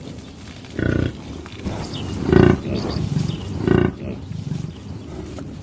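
Bovine calling: three short, low, loud calls about a second and a half apart.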